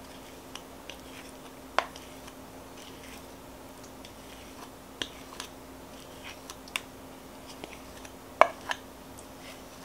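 Wooden spatula scraping creamy peanut butter out of a measuring cup into a bowl of brown sugar: scattered light clicks and taps of wood against the cup, the sharpest about two seconds in and again past eight seconds.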